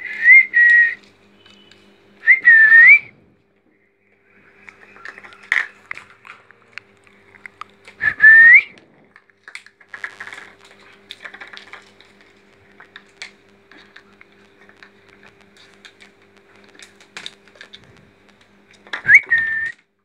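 Four loud whistles, each a short tone that rises and bends in pitch: at the start, about two and a half seconds in, about eight seconds in and near the end. Between them come light clicks and taps of plastic as the bowl and strainer are pecked and shifted on the tiled floor.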